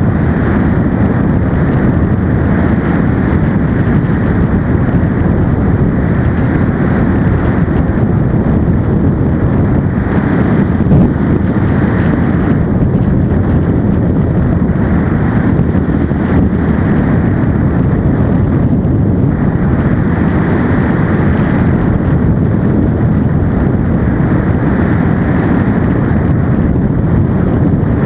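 Ultralight trike's engine and pusher propeller running steadily in cruising flight, loud and even, mixed with wind rushing over the microphone.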